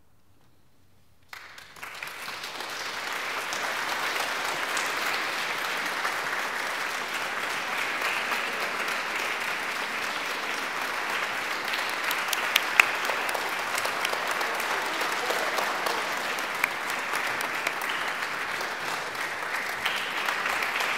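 Near silence, then an audience starts applauding about a second in; the clapping builds over the next couple of seconds and then carries on steadily.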